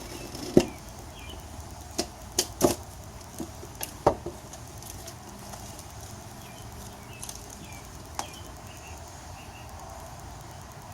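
Sharp knocks and clicks of tire levers against the motorcycle wheel's rim as the new tire's bead is pried on: a cluster of knocks in the first few seconds and a single one near the end.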